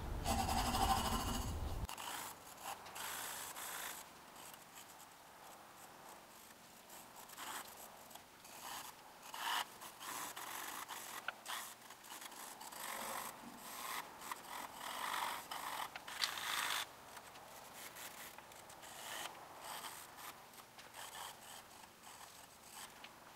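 Graphite pencil hatching on drawing paper: irregular short scratchy strokes, louder for the first two seconds.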